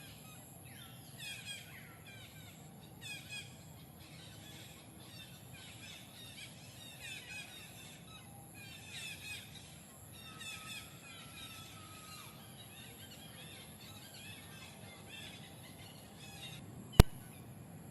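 High chirping calls in short clusters every one to two seconds over a steady outdoor background, with one sharp loud click about a second before the end.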